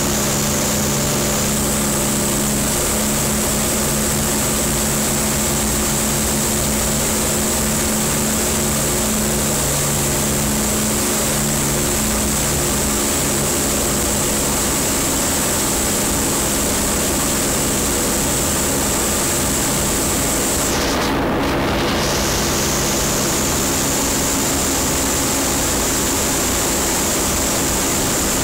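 The four Rolls-Royce Merlin V12 engines and propellers of Lancaster bomber PA474 running steadily on final approach to land, heard from inside the aircraft's nose over a constant rush of airflow. The high hiss briefly drops away about three-quarters of the way through.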